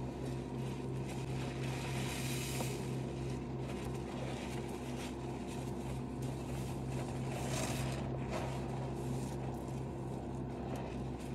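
Soapy sponges squeezed by rubber-gloved hands in thick suds in a steel basin: wet squelching and crackling foam, swelling louder twice. A steady low hum runs underneath.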